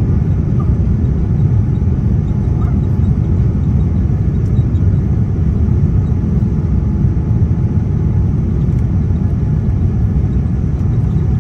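Steady low rumble of a Boeing 787-9 airliner heard from inside the cabin: engine and airflow noise with no distinct events.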